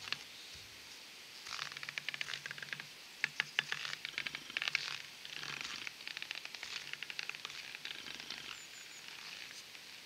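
Metal stilts crunching through about 2.5 inches of crunchy snow as a person walks on them, with uneven clusters of crackly steps. The steps grow fainter near the end.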